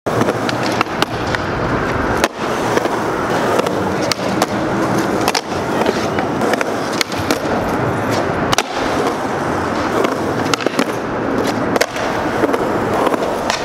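Skateboard wheels rolling on concrete with a steady rumble, broken again and again by sharp clacks of the board popping and landing as tricks are done.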